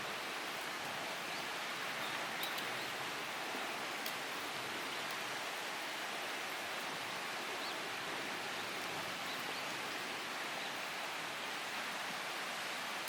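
Open bonfire burning: a steady hiss with a few faint crackles.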